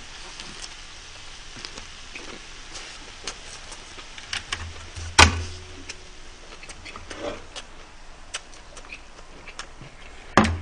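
Close-miked chewing of a big mouthful of a lettuce and perilla-leaf wrap with beef bulgogi: many small crunchy, wet mouth clicks. A sharp knock comes about halfway, and another near the end.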